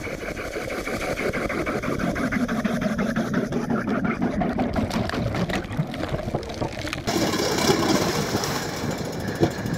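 Gas-powered ice auger running as it drills holes through the lake ice, with ice chips thrown out. The engine note changes abruptly about seven seconds in.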